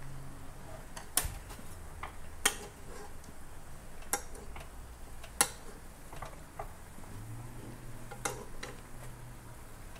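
Snapper heads simmering in sake broth in a wok, punctuated by several sharp clicks of chopsticks and a metal spoon against the pan as broth is spooned over the fish.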